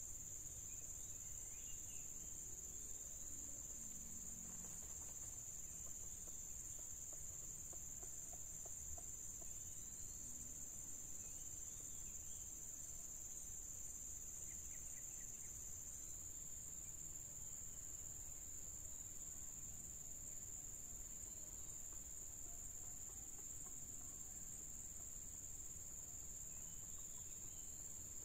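Steady high-pitched drone of an insect chorus, continuous and even throughout.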